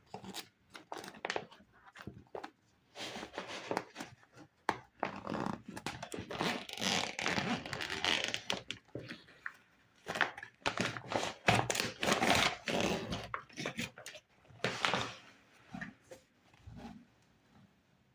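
Plastic toy kitchen pieces and their packaging being handled and unpacked: irregular clicks, taps and crinkly rustling.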